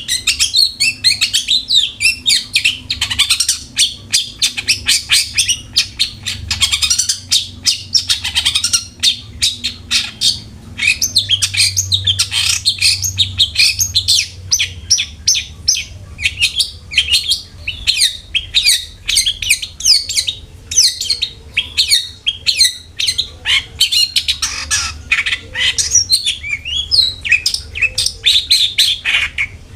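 Long-tailed shrike (cendet) in full song: a rapid, unbroken stream of sharp chattering and squeaky notes, several a second, the kind of lively singing played to spur another shrike into song.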